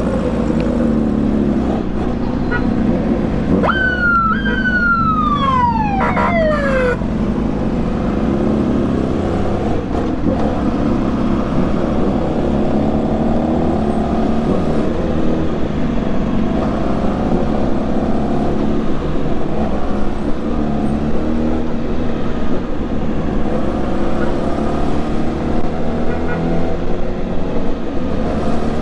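Yamaha YZF-R6 inline-four engine running steadily at low speed in traffic, with rushing wind. About four seconds in, a siren gives a short falling wail that slides down over about three seconds.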